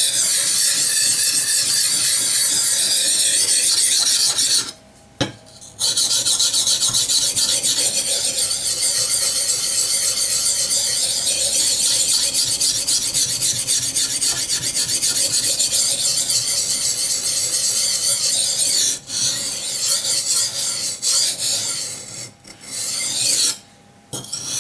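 Steel knife blade of an ESEE-6 being worked on a coarse 220-grit green carbide water stone, a steady gritty scraping during edge reprofiling. It stops briefly about five seconds in and breaks up near the end.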